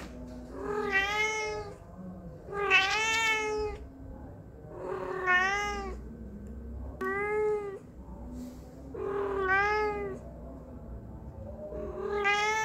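Long-haired ginger cat meowing over and over: six drawn-out meows about two seconds apart, each rising then falling in pitch.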